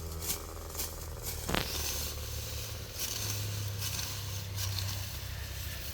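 A sickle cutting grass by hand, a few sharp swishing cuts in the first second and a half and fainter ones after, over a steady low engine hum.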